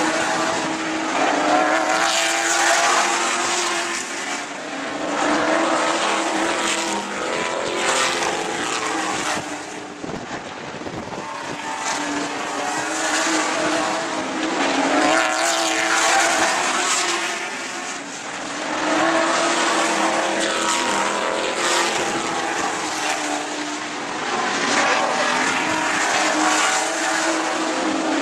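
Several sportsman stock cars racing on an oval, their engines revving and easing off in waves every few seconds as they come off the turns and pass along the straights.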